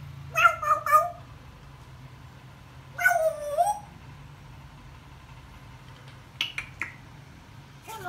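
African grey parrot calling: a quick run of three or four short calls, then a longer call that dips and rises in pitch, and three short high chirps near the end.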